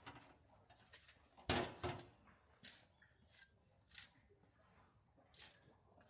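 A few short, irregular knocks and clatters, the loudest about a second and a half in, followed by a second one just after it.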